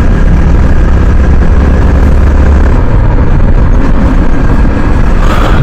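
Yamaha R15 single-cylinder sport bike being ridden steadily along a road, its engine running under a loud, even rush of wind on the microphone.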